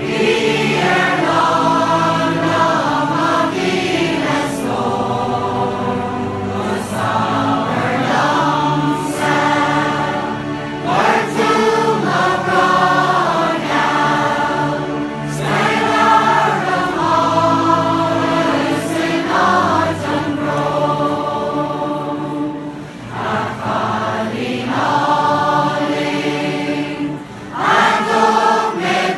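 A large mixed choir of women, men and children singing together in long, sustained phrases.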